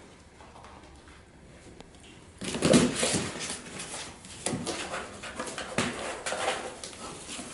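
American Eskimo puppies yipping in short bursts during rough play, starting about two and a half seconds in, mixed with paws scratching and rustling a cardboard box.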